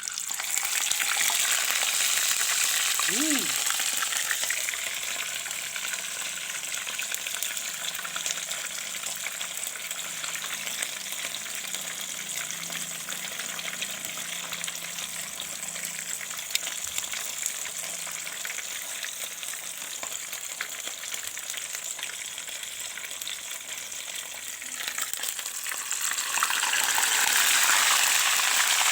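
Tilapia frying in hot oil, a dense steady sizzle that is loudest at first, settles, then grows louder again near the end.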